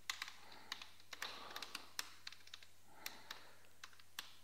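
Typing on a computer keyboard: a run of quiet, irregular key clicks, densest in the first two seconds and then sparser.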